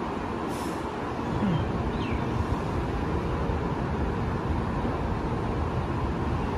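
Steady hum and rumble of a stationary THSR 700T high-speed train standing at the platform, its onboard equipment running, with a short hiss about half a second in.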